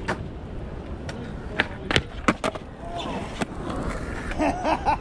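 Skateboard wheels rolling on concrete, with several sharp clacks of boards hitting the ground, the loudest about two seconds in.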